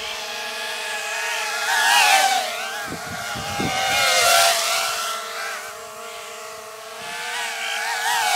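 Electric motors and propellers of a flying RC drift car, a quadcopter with a rear pusher motor, whining at high speed. It swells loudly as the craft goes past about two seconds in and again about four seconds in, the pitch sliding down at each pass, and comes up again near the end. A steady lower hum runs underneath.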